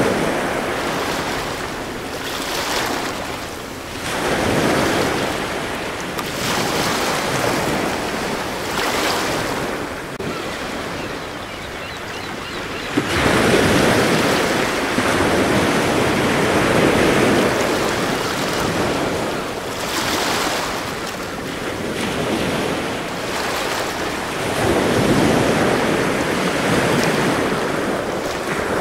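Ocean surf: waves breaking and washing in, the rush swelling and easing every few seconds, with a longer, louder swell about halfway through.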